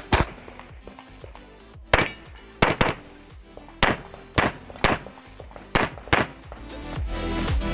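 Pistol shots from a Sig P320 in .40 S&W, about eight sharp reports in singles and quick pairs, over electronic background music that grows louder near the end.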